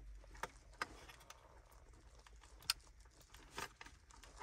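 Plastic wiring-harness plugs being handled and pushed into the sockets on the back of an aftermarket touchscreen head unit: a few faint clicks and rattles of plastic and wire, the sharpest a little past halfway.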